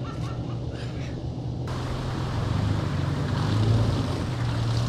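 Toyota FJ Cruiser's V6 engine running at low speed as the 4x4 creeps through mud on a dirt track, a steady low hum that grows louder as it comes closer. About two seconds in, a steady hiss joins it.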